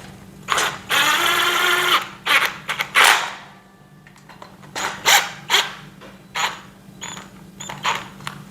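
A cordless impact driver runs for about a second, driving a screw into the shelf frame. It is followed by a series of sharp clicks and knocks as the metal parts are handled.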